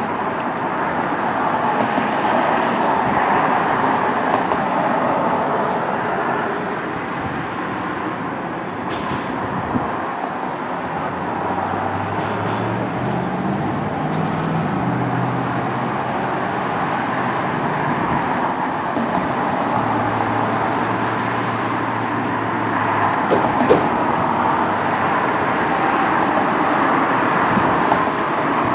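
Steady outdoor traffic noise, with a low engine drone coming through twice: once a little under halfway in and again past two-thirds.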